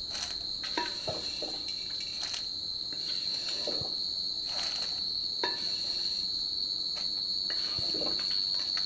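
A metal spoon scrapes and taps against a steel plate and pan as a dry roasted coconut-and-lentil mixture is tipped out, in short scattered scrapes and clicks. Under them a steady high-pitched tone carries on unbroken.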